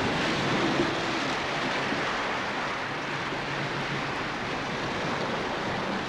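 Steady heavy rain with wind, an even, dense hiss.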